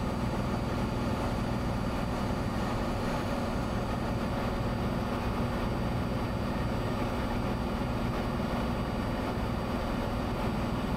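Cessna 182's engine and propeller droning steadily in the cabin during the climb, with a faint steady high-pitched tone above the drone.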